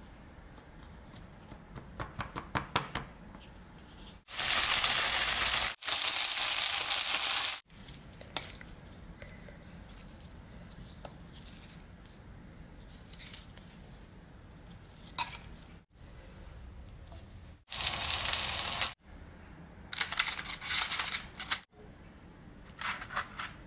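Food frying in a hot pan: loud sizzling in three spells that start and stop abruptly, with lighter clicks and scrapes of cooking utensils in between.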